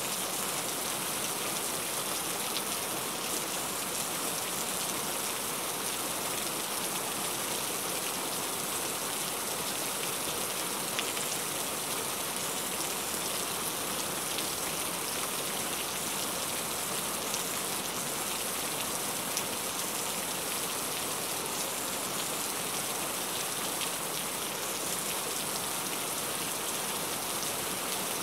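Heavy rain falling steadily, a dense even hiss of countless drops that holds at the same strength throughout.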